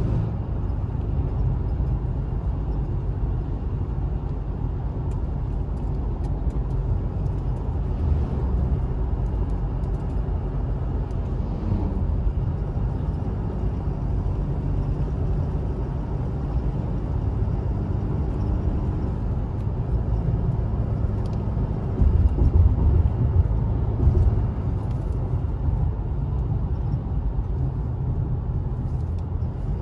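Cabin noise of a car driving on an unpaved red-earth road: a steady low rumble of engine and tyres, growing louder for a couple of seconds about two-thirds of the way through.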